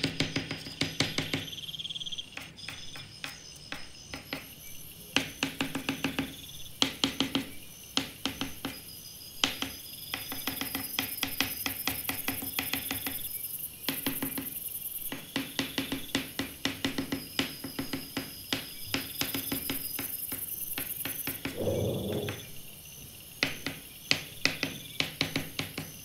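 Soft pastel stick scratching and tapping on sanded paper in quick short strokes, coming in irregular bursts, over background music.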